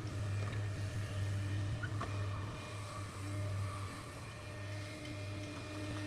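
Excavator's diesel engine running steadily, with a steady low hum and higher whining tones over it, and a brief knock about two seconds in.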